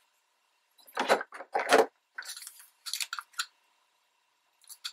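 Glossy magazine paper rustling and crinkling in several short, scratchy bursts as torn strips are handled and pressed down onto a page. The loudest two come about a second in, followed by a run of lighter rustles.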